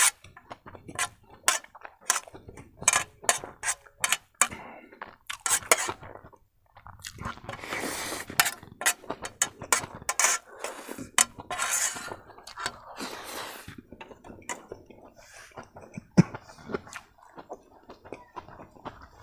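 A metal spoon clinking and scraping against a steel plate many times, with noodles slurped and chewed in between; two longer hissing slurps come in the middle.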